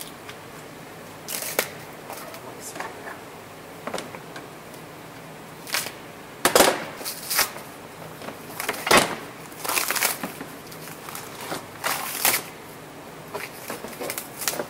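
Plastic stretch wrap crinkling and tearing in irregular bursts as it is pulled off a steel trailer hitch, with two heavier knocks about halfway through.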